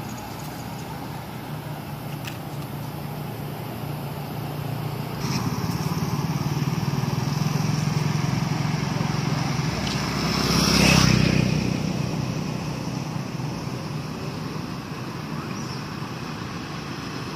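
Road traffic: a motor vehicle engine running steadily, with a vehicle passing close by about eleven seconds in, swelling and then fading.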